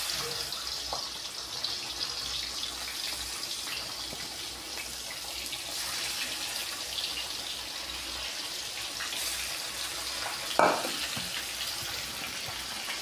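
Pieces of hilsa fish sizzling steadily as they fry in hot oil in a black iron karahi. A brief knock comes about ten and a half seconds in.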